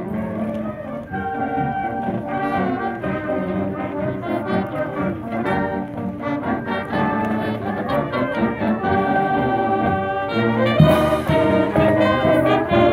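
Marching band playing a tune on brass (trumpets, trombones, saxophones and sousaphones), growing a little louder in the last few seconds as the band nears.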